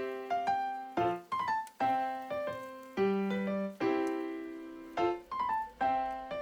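Background piano music: a light, steady tune of struck notes and chords, about one beat a second.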